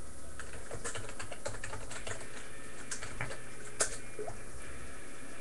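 Computer keyboard being typed on: irregular key clicks, with one sharper click about four seconds in, over a steady low hum.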